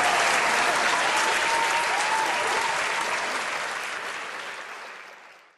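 Wedding guests applauding, the clapping fading out near the end.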